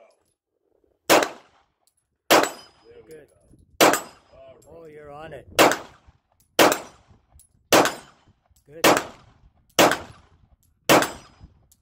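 Canik TP9SA Mod 2 9mm pistol firing nine single shots at a slow, steady pace, about one to two seconds apart.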